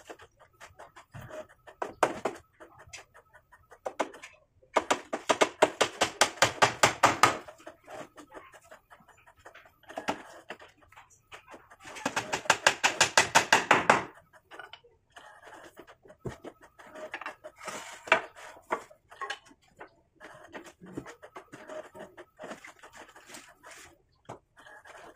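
Claw hammer driving nails into a wooden frame joint: two runs of rapid blows, about five a second, a few seconds apart. Lighter taps and knocks of wood come in between.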